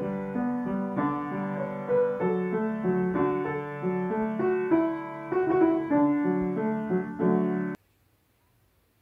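Upright piano playing a tune with melody and chords, which stops abruptly about eight seconds in, leaving near silence.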